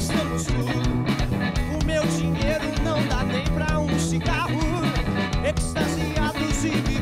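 Rock band playing live: a man singing over electric bass and drum kit.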